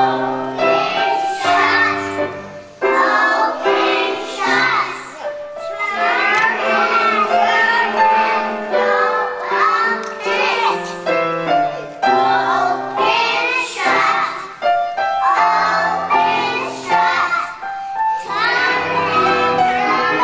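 A group of young children singing a song together, with piano accompaniment.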